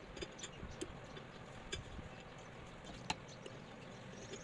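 Scattered light clicks and taps of ceiling fan motor parts being handled while the fan is closed up, with one sharper knock about three seconds in.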